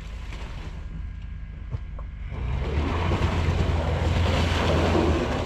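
Toyota 80 series Land Cruiser fording an icy river: its engine runs low, and about two seconds in a loud rush of splashing, churning water builds up as the truck pushes through the crossing.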